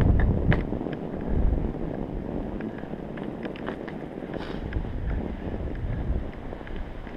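Mountain bike rolling through snow: a low rumble of the tyres in the snow and wind buffeting the bike-mounted camera's microphone, with scattered small clicks and rattles from the bike, louder in the first second.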